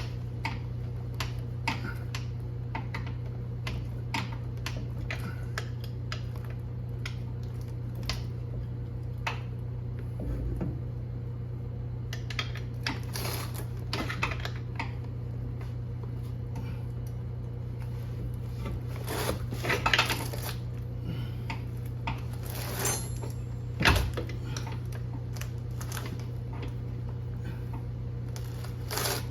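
Irregular metallic clicks and clinks of hand tools working on the Honda CR-V's axle, busier in a couple of stretches, with one heavy thump about two-thirds of the way through. A steady low hum runs under it all.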